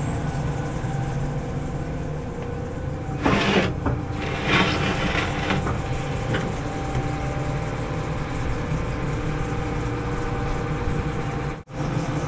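John Deere hydraulic excavator's diesel engine running steadily while the bucket and thumb are being worked. There are two short, loud rough noises about three and four and a half seconds in, and the sound cuts out for an instant near the end.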